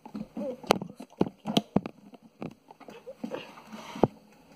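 A handful of sharp, irregular knocks and clicks, with a faint short bit of voice just after the start.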